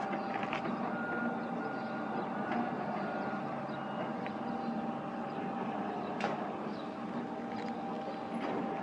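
Large Pontiggia bench lathe running while turning a workpiece with a cut about 3 mm deep: a steady machine hum with a few sharp clicks, the loudest about six seconds in.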